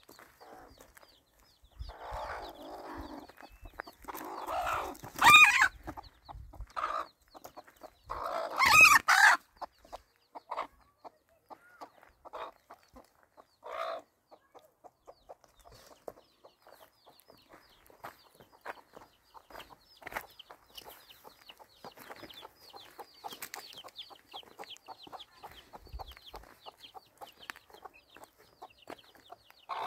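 Chickens clucking and a rooster crowing, with the two loudest calls about five and nine seconds in.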